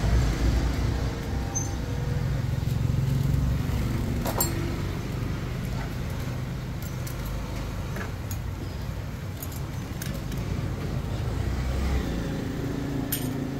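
A steady low rumble, with a few light metallic clinks as motorcycle clutch plates are handled.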